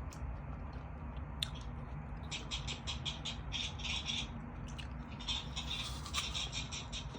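Crunchy apple being chewed close to the microphone: runs of quick wet crunches, about six a second, in three bursts. There is a sharp click about a second and a half in.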